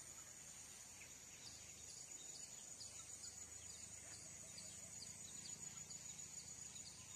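Faint outdoor field ambience: a steady high-pitched insect drone, with short high chirps repeating about three times a second from about a second and a half in.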